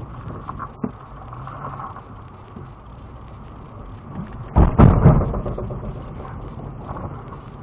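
Inside the cab of a Lexus GX470 crawling over granite slab: steady low engine and drivetrain noise, a single knock about a second in, then a cluster of loud thumps and rattles about five seconds in as the truck lurches over a rock step.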